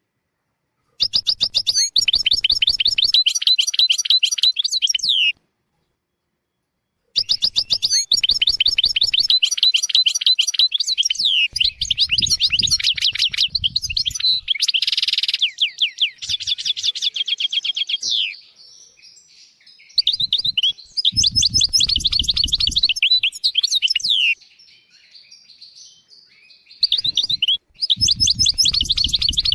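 European goldfinch singing, with long phrases of rapid twittering trills and chirps broken by several short pauses. This is goldfinch song of the kind used as a tutor recording to teach young goldfinches and canaries.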